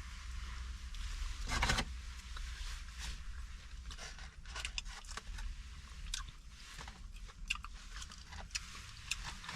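A person chewing food close to the microphone, with irregular crunching clicks and a louder crunch about a second and a half in.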